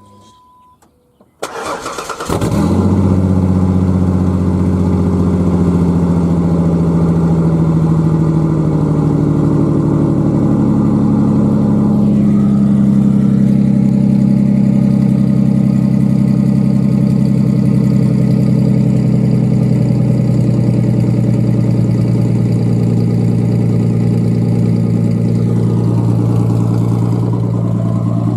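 1995 Ford Ranger V6 with a custom dual exhaust and X-pipe starting, catching about a second and a half in, then idling loudly and steadily. A short electronic beep sounds just before it cranks.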